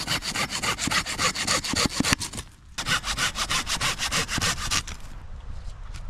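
Hand saw cutting through a thin wooden pole with bark, in quick back-and-forth strokes. The strokes pause briefly about two seconds in, resume, and stop about five seconds in, leaving quieter rustling.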